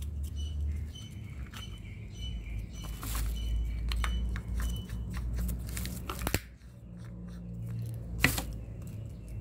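Walnut shell being picked and peeled apart by hand, with small crackling clicks of breaking shell fragments. Two sharper knocks, about six and eight seconds in, as the wooden nutcracker and a whole walnut are handled.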